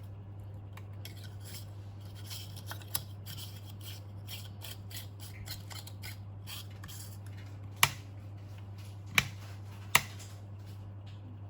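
Hand work on small parts: a run of light scraping and snipping sounds, then three sharp clicks about a second apart near the end, over a steady low hum.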